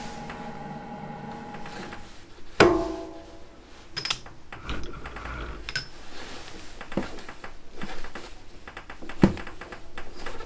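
Metal clicks and knocks of a sliding tailstock die holder being handled and pushed onto a small steel pin in a lathe collet chuck, ready to cut a 4-40 thread. One loud ringing clank comes about two and a half seconds in, with lighter clicks later; faint background music at the start.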